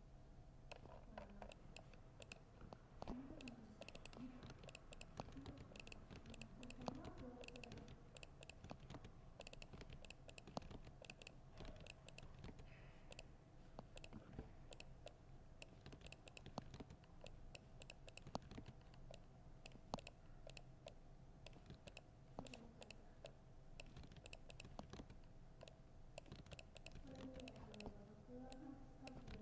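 Typing on a laptop keyboard: soft key clicks in quick, uneven runs throughout, with faint voices in the background now and then.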